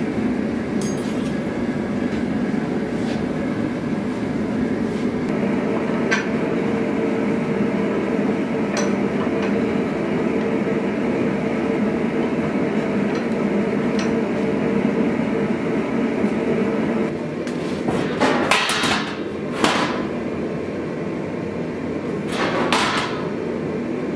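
Gas forge burners running with a steady low roar, with a few light metal clicks. From about 17 seconds the roar drops away, and two or three short bursts of scraping noise follow.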